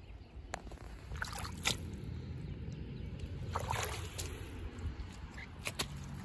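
Soft squelches and scattered clicks of footsteps on wet, muddy ground, over a low steady rumble.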